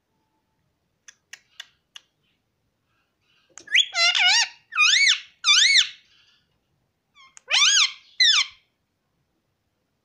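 Indian ringneck parakeet vocalizing: a few soft clicks, then bursts of high, warbling calls that swing up and down in pitch, a run of them about four seconds in and two more near eight seconds.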